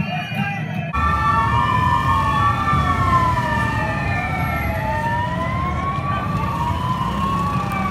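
About a second in, crowd voices give way to several police sirens wailing at once, each rising and falling slowly over a few seconds, over a steady low street traffic noise.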